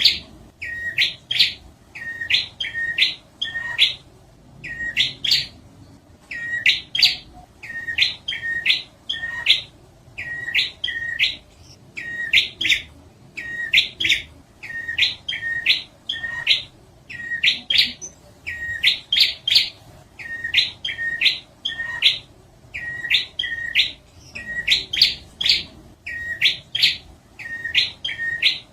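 Prinia (prenjak) song: quick groups of two to four sharp, upward-sweeping notes, about one group a second without pause. It is a lure-call recording of the kind used to train pet prinias and to draw wild ones in.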